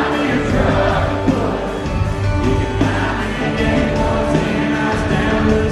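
Live country band playing loudly over a concert PA, with a man singing into a handheld microphone.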